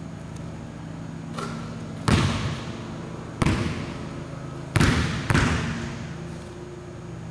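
Basketball bouncing on a hardwood gym floor: a lighter knock about a second and a half in, then four loud bounces that echo around the hall, the last two close together. A steady low hum runs underneath.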